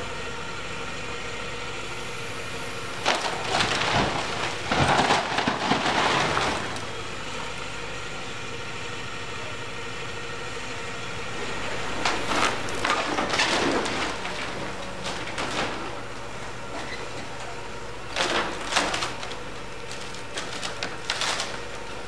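Volvo wheeled excavator's diesel engine running steadily while it tears down a timber house, with bursts of cracking, splintering and crashing wood as boards and walls give way: the longest and loudest about three to six seconds in, more around twelve to fourteen seconds in, and shorter crashes near eighteen seconds and near the end.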